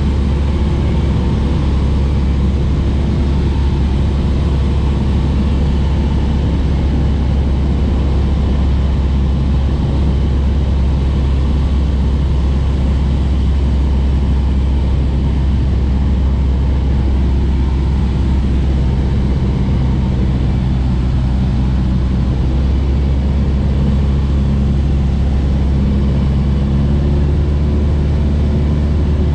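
A light aircraft's engine and propeller droning steadily, heard from inside the cabin during the landing approach. A few steady hum tones come through more clearly from about two-thirds of the way in.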